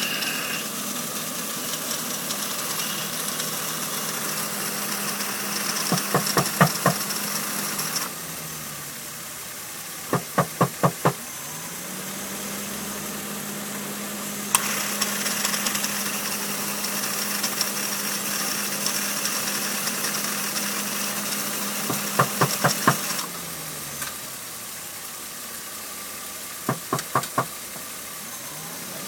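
A 1996 BMW E36 328is's A/C compressor running with its clutch engaged, a winding, rattling noise over the idling straight-six, which the owner suspects is a bad compressor. The noise cuts out about eight seconds in and comes back with a click at about fourteen seconds, then cuts out again near twenty-three seconds. Groups of about four hand knocks mark each switch of the A/C.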